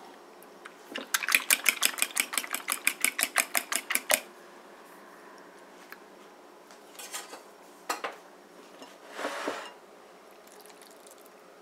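A fork beating eggs in a ceramic bowl, clinking fast against the bowl at about seven strokes a second for some three seconds. Later comes a single clink, then a short scrape as the bowl is handled.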